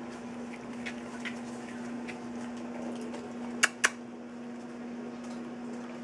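A steady low hum with scattered faint ticks, and two sharp clicks close together a little past halfway, as a young puppy's paw strikes the wire bars of its pen.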